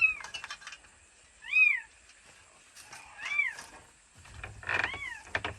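Cat meowing repeatedly: four short calls, each rising then falling in pitch, about a second and a half apart. A few light clicks and taps come between the calls.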